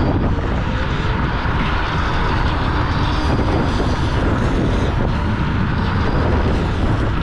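Steady rushing noise while riding a Dualtron X2 Up electric scooter: wind buffeting the microphone over tyre and road noise, with no breaks.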